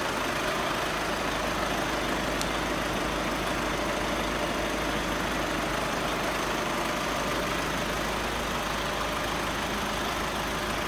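Volkswagen Tiguan engine idling steadily, making a noise that its owner finds strange.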